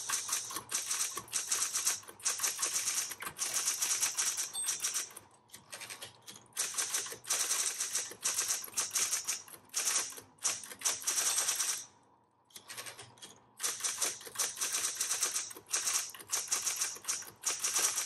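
Smith Corona Coronet Electric 10 electric typewriter being typed on fast: rapid runs of keystrikes, pausing briefly about five seconds in and again about twelve seconds in.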